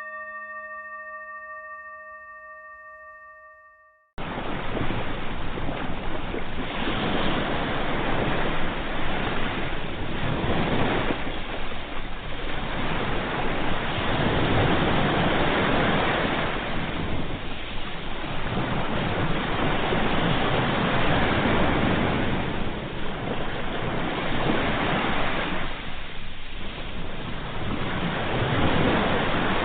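A ringing tone with several overtones fades away over the first four seconds. About four seconds in, sea waves cut in suddenly, breaking and washing on the shore, swelling and ebbing every few seconds.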